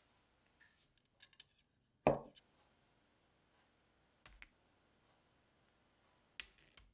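Kitchen handling sounds: a few light clicks, a dull knock about two seconds in, then a metal spoon clinking twice against a ceramic bowl with a short ringing, as salt and black pepper are spooned into a blended chili-tomato dip.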